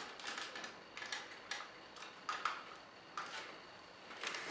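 Light, irregular clicks and taps of hard plastic toy parts being handled and set in place, about a dozen over the span.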